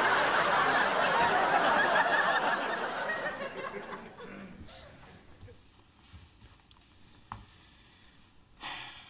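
Sitcom studio audience laughing after a punchline, loud at first and fading away over about four seconds, then quiet with a faint click.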